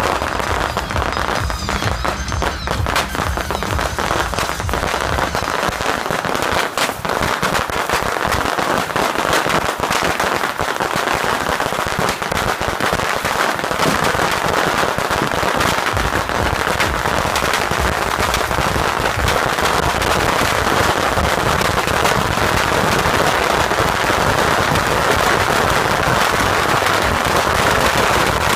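Beehive fireworks launcher (a rack of bottle rockets) firing: a loud, dense, unbroken barrage of rockets and firecrackers cracking and popping, growing slightly louder as it goes.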